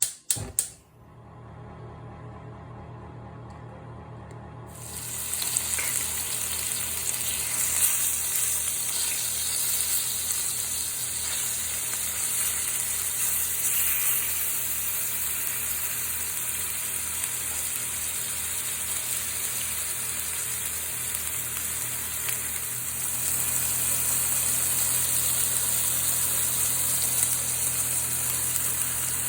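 A few clicks, then a steady low hum; about five seconds in, food starts sizzling in a hot pan and keeps up a steady sizzle. The low hum grows louder later on.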